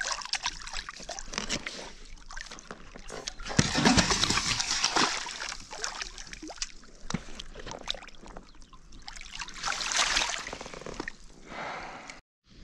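A hooked bass thrashing and splashing at the water's surface beside a float tube as it is played in and scooped into a landing net. The splashing is loudest about four seconds in and again about ten seconds in.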